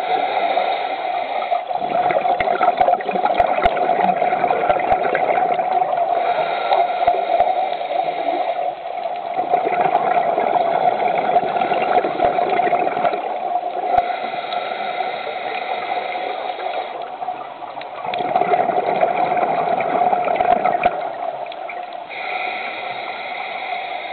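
Underwater scuba breathing through a regulator: long rumbling stretches of exhaled bubbles with scattered pops, about three times, alternating with quieter, steadier stretches between breaths, all over a constant hum.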